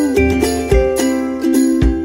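Background music: held chords over a steady beat, with a low thump about once a second and quicker high jingling clicks.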